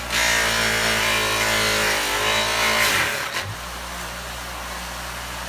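A bench buffer's spiral-sewn cloth wheel buffing a metal pinball ball guide pressed against it: a loud whirring hiss with a tone that sags in pitch. About three seconds in the piece comes off the wheel, leaving the buffer motor running with a steady, quieter hum.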